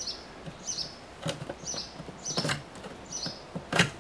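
A small bird chirps repeatedly in the background: short, high, falling chirps about once a second. Over them come a few sharp clicks and knocks of hands handling the EV charger's plastic casing, the loudest near the end.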